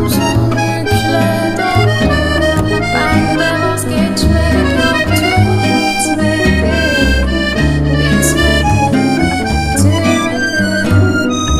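Instrumental background music, loud and continuous, with a melody over changing bass notes.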